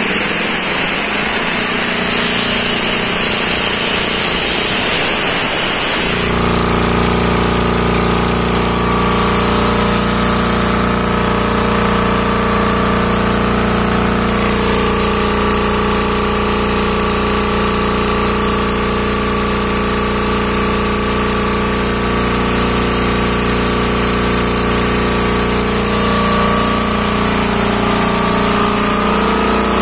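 Hatlapa W 220 reciprocating air compressor, driven by an electric motor, running on test. About six seconds in the sound changes from a noisy rush to a steadier mechanical running with a strong deep hum.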